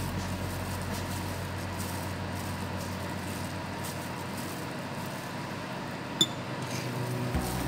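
Steady room hum, with one short, sharp glass clink about six seconds in as a bamboo skewer is laid in a glass dish.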